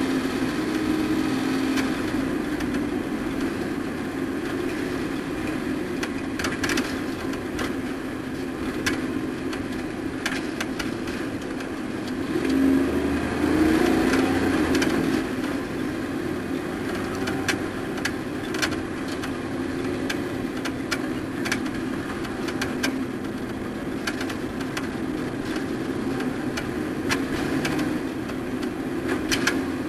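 Racing truck's engine running at fairly steady revs, getting louder and shifting in pitch for a few seconds about halfway through.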